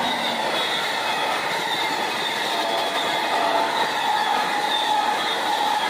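Amtrak passenger train passing close by: the trailing locomotive and then the passenger cars roll over the rails with a loud, steady wheel-on-rail noise and a thin high wheel squeal ringing over it.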